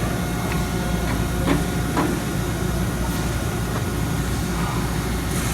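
Steady machinery hum of a running Mazak Super Turbo X48 CO2 laser cutter, with two light knocks about a second and a half and two seconds in.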